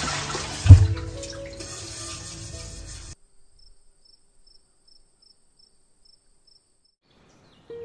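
Tap water running into a steel pot being rinsed at a kitchen sink, with soft background music and one loud dull knock about a second in. The sound cuts off suddenly about three seconds in, leaving near silence with faint evenly spaced ticks until music comes back at the end.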